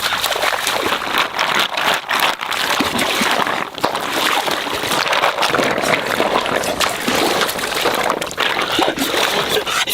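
Water splashing and trickling: a steady rush of noise dotted with many small splashes.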